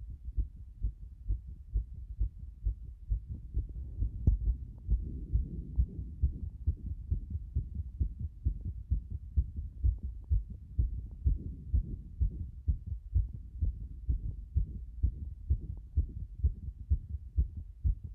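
Fast heartbeat: low, evenly repeating thumps at about two a second, with one sharp click about four seconds in.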